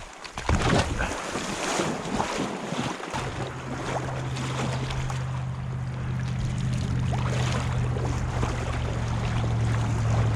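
A steady low motor hum starts about three seconds in and keeps going, over wind on the microphone and water noise.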